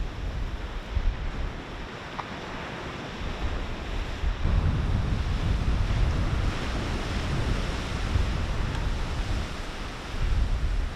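Sea surf washing onto a beach, with wind gusting against the microphone in low rumbles.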